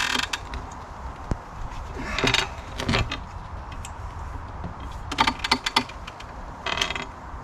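Steel cant hook working a large elm log: a few irregular knocks, clinks and scrapes as the hook bites and the log is levered over, with a cluster of them about five seconds in.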